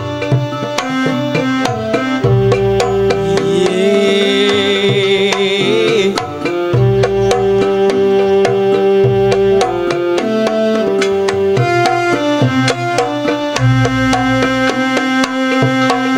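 Campursari-style music: steady hand-drum beats under held melodic notes that change every second or two, with a wavering high melody line about four to six seconds in.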